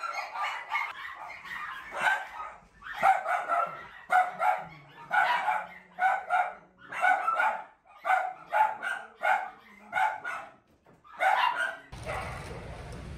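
Dogs barking repeatedly in quick runs of sharp barks, about two a second. Near the end the barking stops and a steady outdoor background noise takes over.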